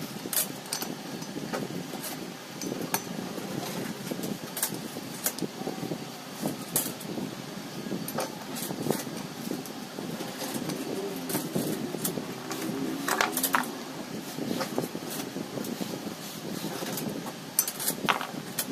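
Scattered clicks and light metallic clinks of tools and parts being handled, over a steady low background hum.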